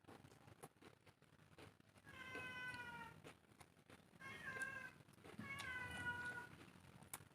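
A cat meowing: three drawn-out meows about a second apart, each sliding slightly down in pitch, the last one the longest.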